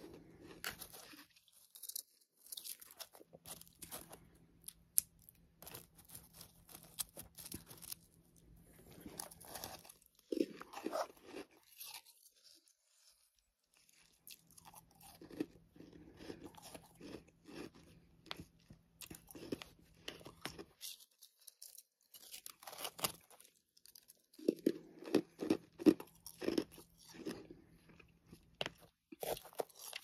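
Person chewing mouthfuls of soft freezer frost and humidifier frost: irregular crisp crunches in clusters, with a couple of short pauses.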